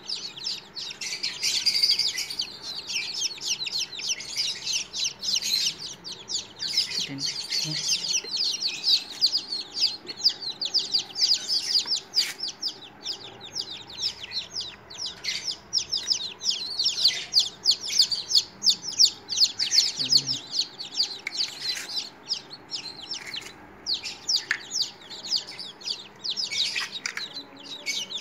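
Newly hatched chicken chicks peeping continuously, several chicks calling at once in rapid, overlapping high chirps.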